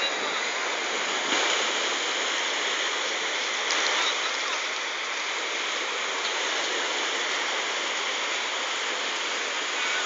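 Small waves breaking and washing up a pebble beach, a steady rushing noise, with faint voices of bathers.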